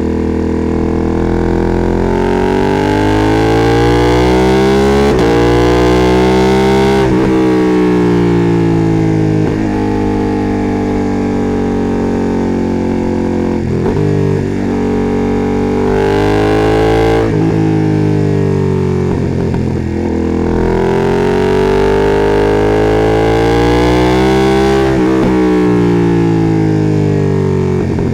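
Ducati Panigale V2S's V-twin through a Termignoni exhaust, ridden hard: the engine note climbs and falls again and again, with several quick gear changes.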